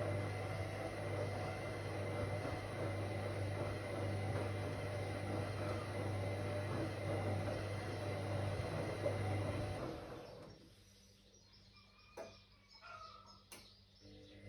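Whirlpool AWOC 8283 washing machine running with a steady motor hum that stops about ten seconds in. The pause that follows is much quieter, with a few sharp clicks.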